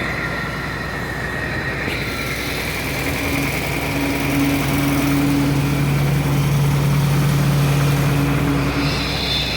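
Engine of construction machinery running steadily during a concrete pour, with a low hum that grows stronger from about three seconds in and eases off near the end.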